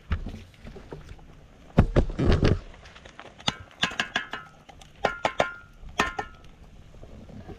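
Dishes and cooking utensils being handled. There is a heavy knock and clatter about two seconds in, then a run of sharp clinks with a short metallic ring after several of them.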